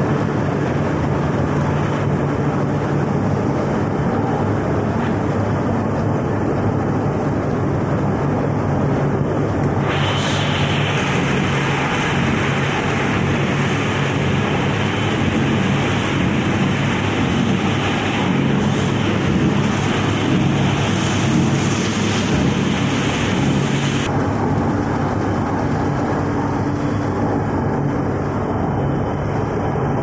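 Plastic film recycling washing line running: a steady industrial machine noise with a low motor hum. About ten seconds in, a brighter hiss comes in suddenly and drops out again about fourteen seconds later.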